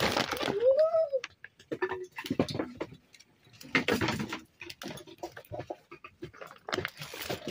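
Malabar spinach stems being cut against a boti, a curved floor-mounted blade: a run of crisp clicks and snaps, with rustling of leaves and a plastic sack in short bursts. A brief rising-then-falling call sounds about a second in.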